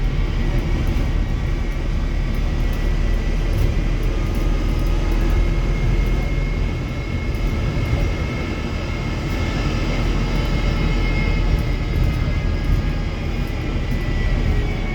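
Wrightbus StreetDeck bus under way: its Mercedes-Benz OM934 four-cylinder diesel engine and Voith gearbox running with a heavy low rumble and a high whine over it. The whine rises a little in pitch about halfway through.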